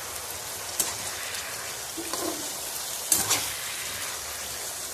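Chicken pieces sizzling in a spicy coconut-paste gravy in a wok while a metal spatula stirs them, scraping and knocking against the pan now and then, most sharply a little after three seconds in.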